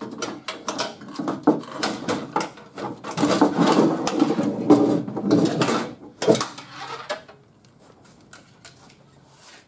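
Clicking, knocking and rattling of a car door's outside handle and latch assembly being worked free and pulled out of the door shell, with plastic and metal parts knocking against the bare sheet-metal door for about six seconds.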